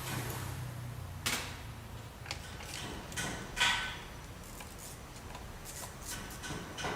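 Irregular clicks, knocks and light metallic clinks of hand tools and engine parts being handled during disassembly of a car's engine bay, the loudest clink a little past halfway.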